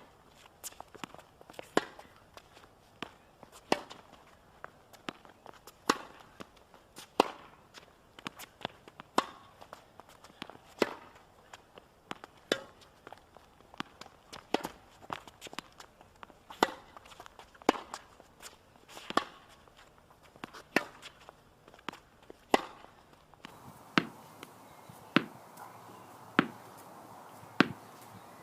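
A run of sharp tennis ball thwacks, ball off racket strings and off the court, with louder hits every second or two and softer bounces between. About three-quarters of the way through the background hiss changes, as a different recording begins.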